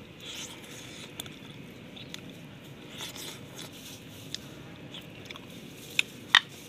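A man chewing a mouthful of pork leg and rice, with soft wet mouth noises and small clicks; two short sharp smacks near the end are the loudest sounds.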